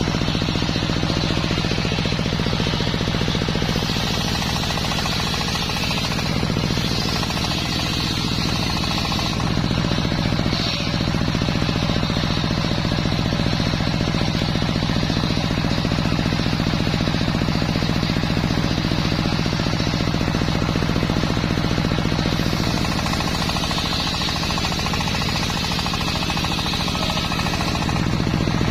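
Homemade circular sawmill running steadily with a low, rapidly pulsing hum, its blade cutting through a waru log. A harsher, higher cutting noise rises over the hum from about four to nine seconds in and again near the end.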